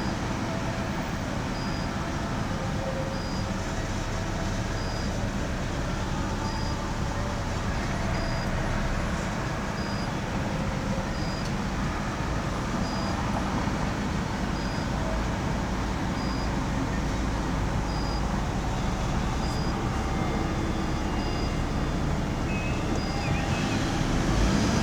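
Steady road noise of a car driving in city traffic, heard from inside the cabin: engine and tyre rumble, getting a little louder near the end. A faint short high tone repeats about every second and a half.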